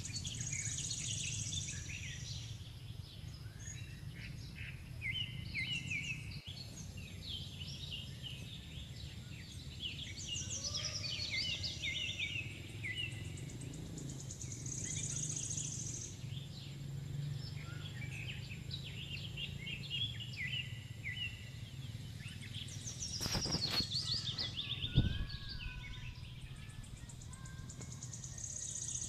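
Woodland ambience of many small birds chirping and calling, with insects buzzing in high spells of a second or two that come and go, over a steady low background noise. A few sharp clicks and one knock come a little before the end.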